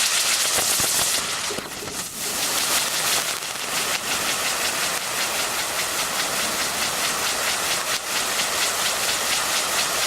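Nico "Orient" firework sun (spinning firework wheel) burning with a loud, steady hiss as its fountain sprays. It weakens briefly about a second and a half in as one effect gives way to the next, then hisses on strongly.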